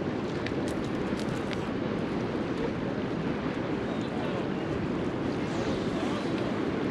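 Steady rushing noise of wind on the microphone and water washing at the river mouth, with a few faint ticks in the first couple of seconds.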